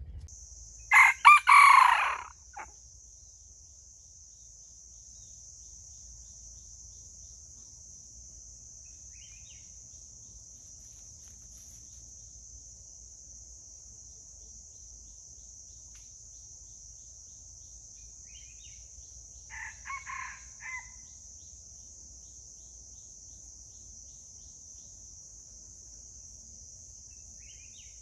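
Red junglefowl rooster crowing once, loud and short, about a second in, with a fainter, shorter call about twenty seconds in. A steady high insect drone runs underneath.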